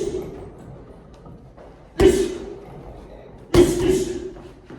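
Loud, sudden impacts: one right at the start, then two more about two and three and a half seconds in, each ringing out briefly.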